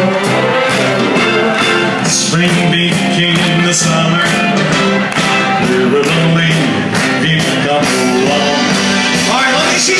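Live band playing loud, amplified up-tempo music with a steady beat and a singing voice.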